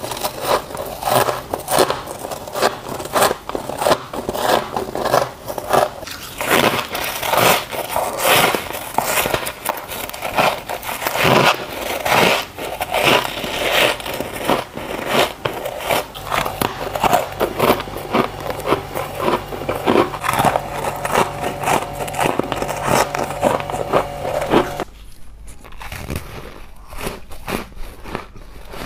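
Soft freezer frost being bitten and chewed: a rapid run of crisp, crackling crunches. About 25 s in, it becomes quieter and sparser bites of refrozen powdery ice.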